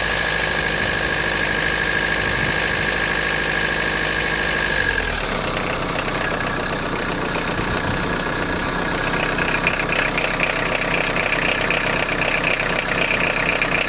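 Citroen Jumpy/Dispatch's XUD9TF 1.9 turbodiesel idling roughly with a diesel knock. About five seconds in, the steady note breaks up into uneven running, and from about nine seconds it grows a little louder with a higher clatter. The owner suspects air getting into the fuel line.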